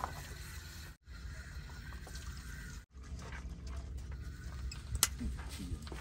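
Wind rumbling on the microphone over an outdoor table, with light clatter and one sharp click about five seconds in; the sound cuts out briefly twice.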